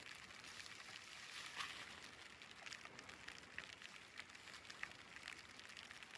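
Faint light rain pattering: a soft hiss with many small, irregular drip ticks.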